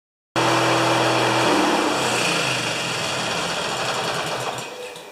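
16 HP Briggs & Stratton opposed-twin engine of an MTD yard tractor running on its freshly rebuilt carburetor. It comes in suddenly, shifts in pitch about a second and a half in, and dies down near the end.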